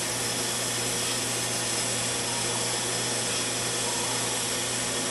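Home-made 2x72 belt grinder running, driven by a salvaged single-phase air-compressor motor: a steady motor hum under an even hiss of the belt.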